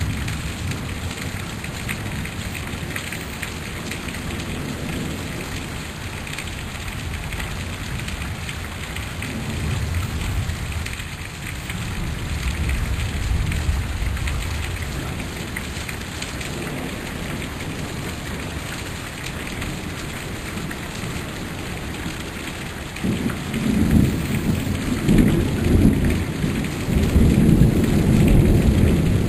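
Heavy rain falling steadily on a street and trees, with thunder rumbling low at times. A louder, longer roll of thunder begins about three-quarters of the way through.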